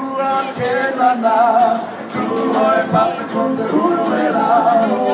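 A male vocal group singing a song together in harmony, several voices at once.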